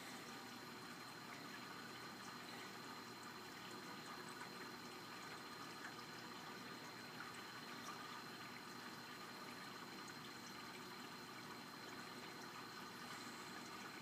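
Faint, steady water-circulation noise from an aquarium with a VorTech MP40w propeller pump running, with a thin steady high tone.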